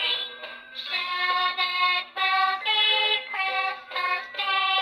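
A children's sound book's small built-in speaker playing a sung Christmas song: a bright, childlike voice holding one note after another over music, with a faint steady hum underneath.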